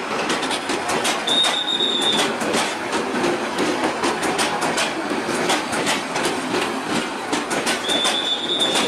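Chinese-built passenger coaches rolling past on the track, their wheels clicking over the rail joints in a quick, continuous clatter. A high, steady wheel squeal rings out briefly twice, about a second in and again near the end.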